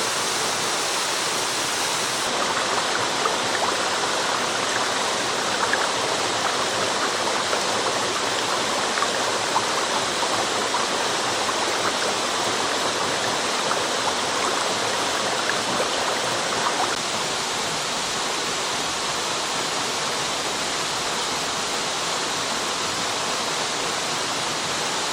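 Waterfall and its stream: a steady rush of falling water. From a couple of seconds in until about two-thirds of the way through, closer splashing and burbling rides on top, then the sound settles to a smoother, even rush.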